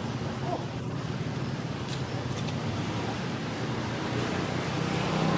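Steady low rumble with a hum running under it, and two faint ticks about two seconds in.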